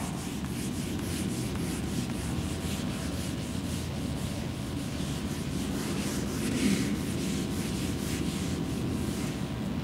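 Whiteboard eraser rubbing across a whiteboard in quick back-and-forth strokes, a steady scratchy swishing as the writing is wiped off.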